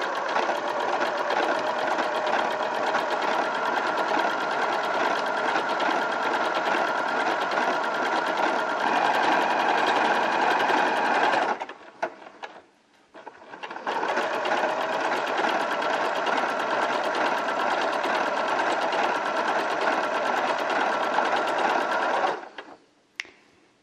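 Janome DC4030 sewing machine running at a steady speed, sewing an overcast stitch along a fabric edge. It stops for about two seconds about halfway through, runs again, and stops a second or so before the end.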